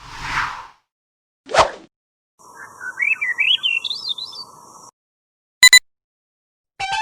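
A run of short stock sound effects from a video editor's built-in library, one after another with silences between: a brief whoosh, a sharp swish, a warbling whistle that climbs in pitch over a steady hum and hiss for about two and a half seconds, then two quick clicks.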